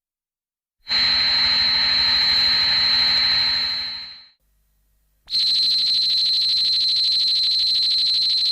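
Two long electronic cries of Hedorah, the Showa-era Godzilla monster: each a steady, high, piercing tone over a buzzing undertone, like an alarm. The first starts about a second in and lasts about three seconds; the second starts about five seconds in and is still sounding at the end.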